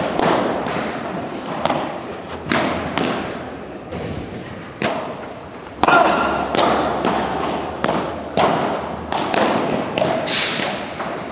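Padel rally: the ball popping off rackets and the court in a quick string of sharp hits, about one a second, each ringing on in the large hall. The loudest hit comes about six seconds in.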